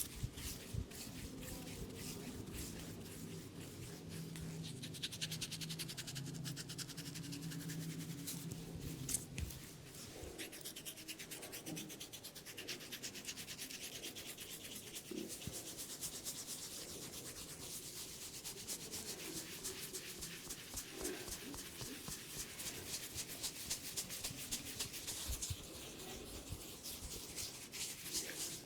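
Hands giving a head massage: fingers rubbing and scratching through the hair and scalp in fast, continuous strokes.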